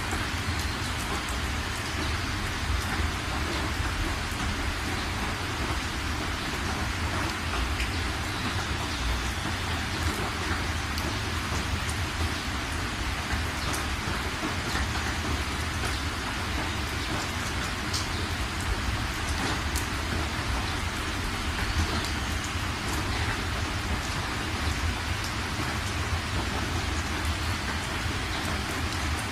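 Heavy rain pelting the windshield and roof of a moving car, heard from inside the cabin, over a steady low rumble of the car on the wet road.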